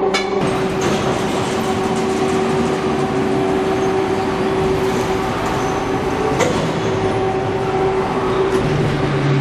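Steady electric hum and mechanical noise of the lifting and bogie-handling machinery in a railway bogie-exchange shed, with a single sharp metal clank about six and a half seconds in and a deeper hum joining near the end.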